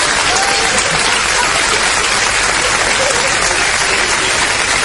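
Audience applauding steadily, a dense even clatter of many hands clapping.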